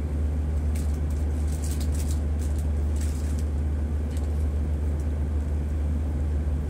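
Steady low hum with a constant hiss underneath, and a few faint clicks about one to three seconds in.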